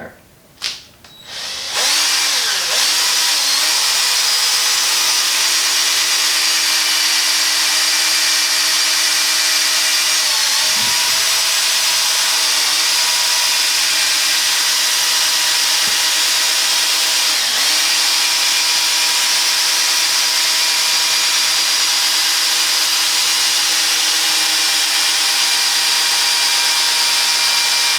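Electric power polisher spinning a compound-loaded buffing pad against a faded plastic headlight lens, cutting it with Meguiar's M105 compound. It starts about two seconds in and runs steadily, its pitch dipping briefly twice as pressure is put on the pad.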